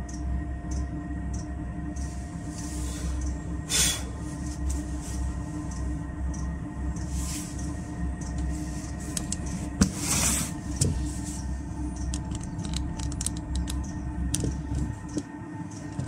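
Diesel space heater running at its lowest setting, a steady low rumble and hum. Two brief rustling hisses about four and ten seconds in, and light handling knocks and clicks towards the end.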